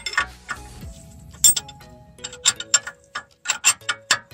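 Socket ratchet clicking in quick runs of strokes as it tightens a nut at the front steering knuckle, over background music.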